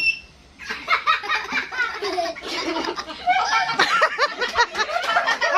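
A group of young people laughing together, several voices overlapping with some chatter, starting after a brief lull about a second in.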